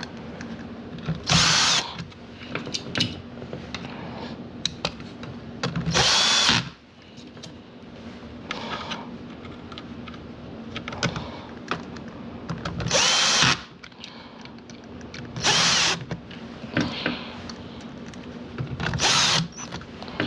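Power drill-driver running in short bursts, five loud runs of under a second each with a whine, and fainter clicks and shorter runs between them: screws being driven as a vacuum power nozzle is reassembled.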